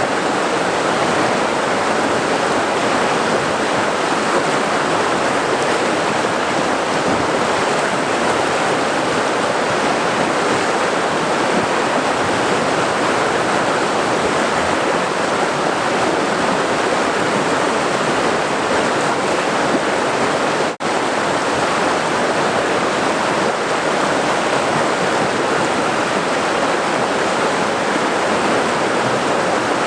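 River water rushing in a steady, even wash of splashing and hiss, with a momentary dropout about two-thirds of the way through.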